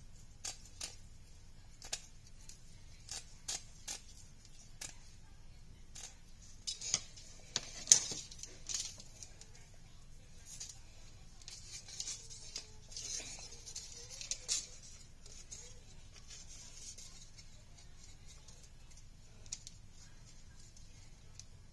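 Scattered sharp clicks and light rattling of plastic rhinestone mesh ribbon being handled, with a busier run of louder clicks between about six and fifteen seconds in.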